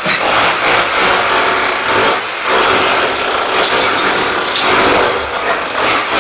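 Rotary hammer chiselling off shower wall tiles, a loud, continuous hammering noise that eases off briefly about two seconds in.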